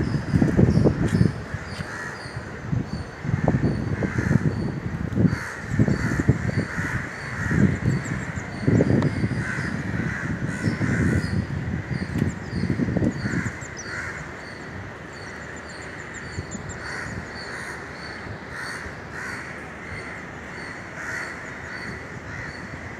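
Many crows cawing over and over, restless ahead of the cyclone's eye. For the first half, heavy gusts of wind buffet the microphone with a low rumble, then ease off while the cawing goes on.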